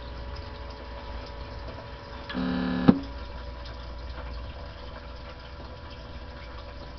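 Steady electrical hum and hiss from a modded Uniden PC76XL CB radio set-up. About two and a half seconds in, a half-second electronic tone sounds and ends in a sharp click.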